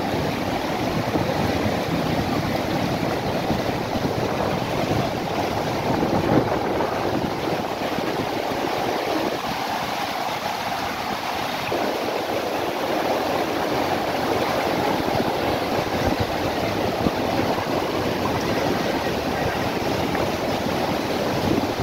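Fast, shallow mountain stream rushing over rocks: a steady, unbroken noise of running water close by.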